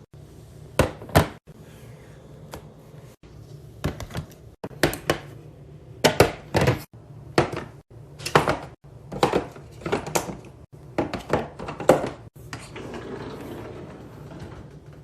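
Household items and containers being handled and set down during organizing: about twenty sharp knocks and clacks, many in quick pairs, followed by a softer rustle near the end.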